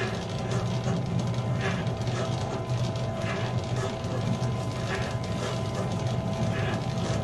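Bakery dough mixer with a spiral hook running steadily, turning dry flour, sugar and salt in a steel bowl for the dry-mix stage before the wet ingredients: a constant motor hum with a faint steady whine and a soft swish repeating a little faster than once a second.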